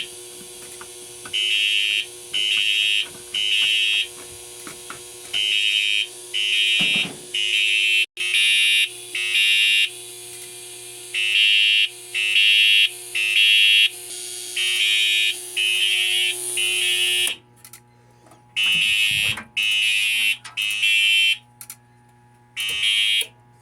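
Siemens UMHU fire alarm horns sounding the temporal-3 evacuation signal: three short, high-pitched blasts, a pause, then three more, repeating, set off by a manual pull station.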